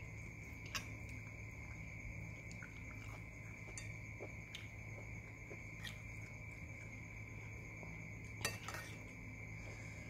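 Metal spoon clinking against a soup bowl while scooping soto, several sharp separate clinks with the loudest double clatter about eight and a half seconds in, over a steady low hum.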